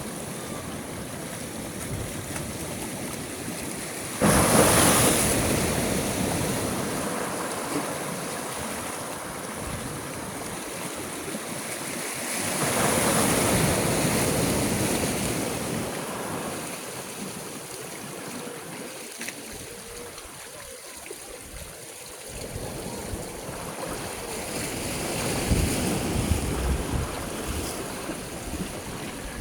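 Sea waves breaking, three in all: a sudden loud crash a few seconds in, then slower swells of surf around the middle and near the end, with a steady wash of water between.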